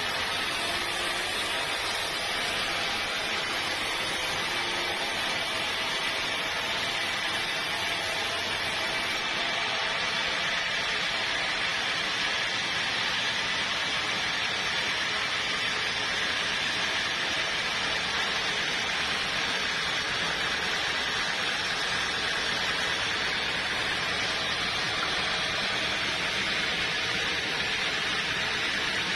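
Sawmill machinery running with a steady, noisy whir and a faint steady whine, unbroken throughout.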